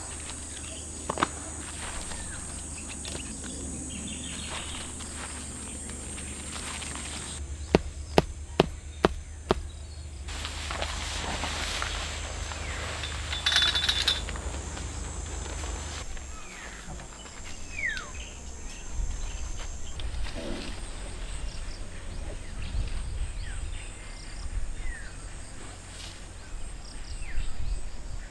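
Countryside ambience: a steady high drone of insects with scattered short bird chirps. About eight seconds in comes a quick run of five sharp knocks.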